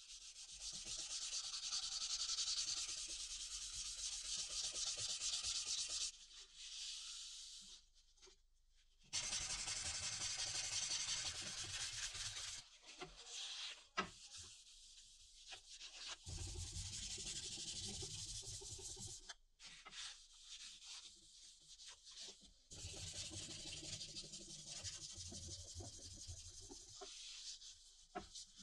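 Fine-grit sandpaper rubbing back and forth on a steel billhook blade in quick hand strokes, working up through 600 to 1500 grit. The sanding comes in several bouts with short pauses between.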